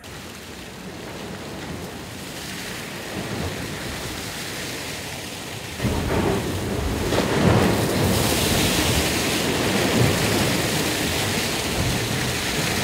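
Rushing wind and water noise on an ocean racing yacht sailing fast. It builds steadily, then jumps louder and heavier about six seconds in.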